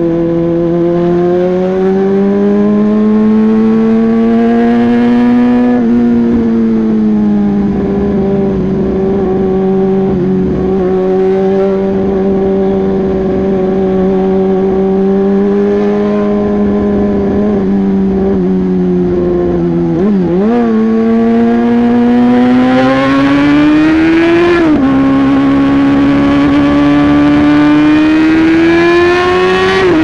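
Yamaha YZF-R6's inline-four engine through an aftermarket SC-Project exhaust, running at steady part throttle with its pitch drifting slowly up and down. About two-thirds through the revs dip and waver, then climb twice, each time falling away sharply at an upshift.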